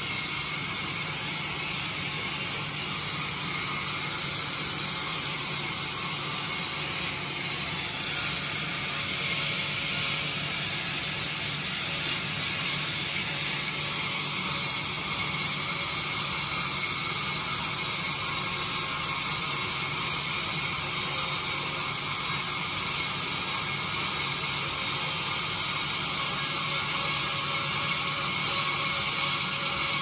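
Large vertical band sawmill, its electric motor and belt-driven blade running steadily as the blade cuts lengthwise through a babool log on the carriage: an unbroken hiss over a low hum.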